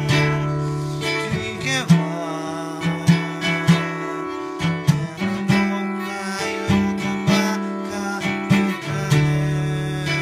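Acoustic guitar playing: a run of plucked notes over sustained low notes, with a few strummed chords.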